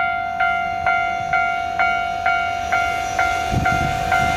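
Railway level-crossing warning bell ringing in a steady rhythm of about two strikes a second. About three and a half seconds in, the low rumble of an approaching freight train joins it.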